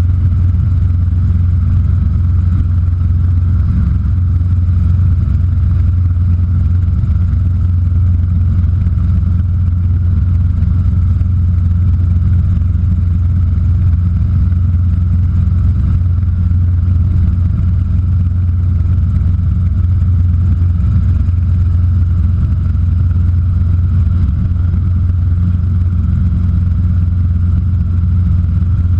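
Robinson R22 helicopter's piston engine and rotor, heard from inside the cabin as a loud, steady low drone with a fainter steady higher hum over it.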